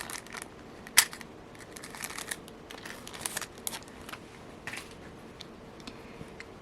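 Small clicks and light rustling of hands handling a big eye beading needle and nylon thread at close range. The sharpest click comes about a second in, over a faint steady hum.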